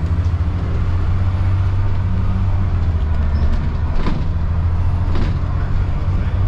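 Dennis Trident double-decker bus's diesel engine running on the road, heard from inside on the upper deck, its low note shifting in pitch a few times. Two sharp knocks about four and five seconds in.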